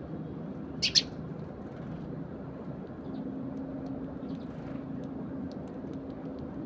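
Eurasian tree sparrows chirping: two loud short chirps about a second in, then scattered faint chirps and pecking clicks, over a steady low hum.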